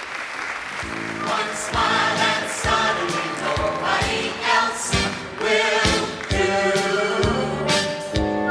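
Applause dying away, then about a second in, music starts: choral singing over a steady beat.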